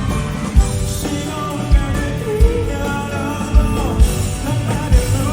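Live amplified pop-rock band music with singing at a concert sound check. Heavy kick-drum beats land about once a second under the voice and instruments, loud through the hall's PA.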